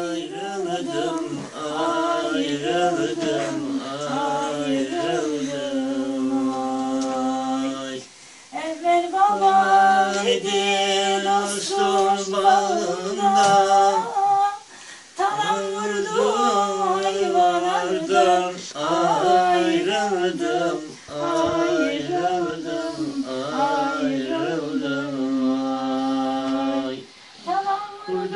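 A man singing a slow folk song unaccompanied, in long drawn-out phrases with wavering held notes and a short breath between phrases every six or seven seconds.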